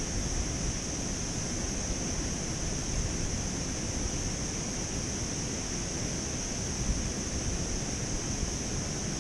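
Steady outdoor wind noise buffeting the microphone, an uneven low rumble, with a constant high-pitched hiss running over it.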